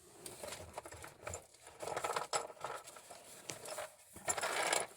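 Handling noise: scattered light clicks and rustling, with a louder scraping rustle near the end.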